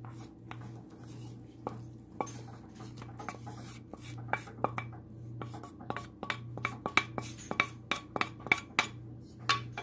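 Spoon scraping and tapping diced vegetables out of a stainless steel pan into a metal mixing bowl: a run of light clicks and knocks, coming faster in the second half, over a steady low hum.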